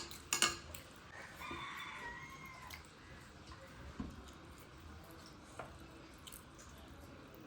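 A rooster crowing once in the background, beginning about a second in and lasting about a second and a half. A sharp click comes right at the start, with a few fainter clicks later.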